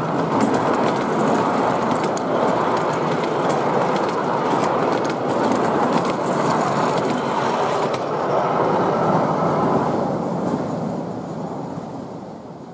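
Miniature railway passenger carriages rolling past on the track: a steady rumble of wheels on rail with frequent sharp clicks over the rail joints, fading away over the last few seconds as the train moves off.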